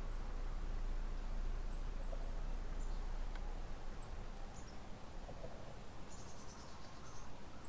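Outdoor lakeside ambience: scattered faint, high-pitched wildlife chirps, with a short buzzy trill about six seconds in, over a low steady rumble.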